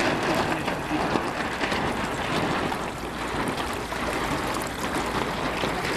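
Steady wind rushing over the microphone with water lapping, a continuous rushing noise with no distinct events.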